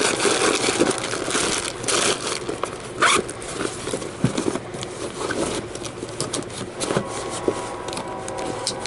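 Plastic first-aid kit bag crinkling and rustling as it is handled and pushed back into a fabric pouch on an SUV liftgate, with scraping and many sharp clicks, and a short rising squeak about three seconds in.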